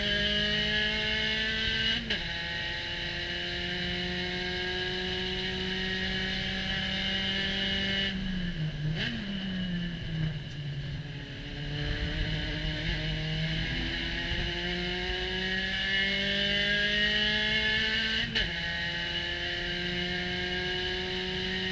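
Spec Racer Ford Gen3 engine heard on board at racing speed, climbing in pitch under full throttle with wind rushing past the open cockpit. The note drops sharply on upshifts about two seconds in and near the end. In the middle it falls and wavers as the car slows for a corner, then climbs again.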